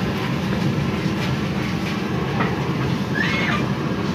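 A cast-iron rice-puffing cannon being turned over its gas burner: a steady rumbling with light rattles of the drum, while the rice is heated under pressure before the lid is released.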